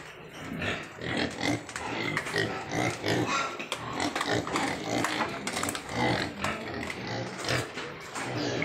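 A litter of piglets grunting in their pen, many short calls overlapping without a break.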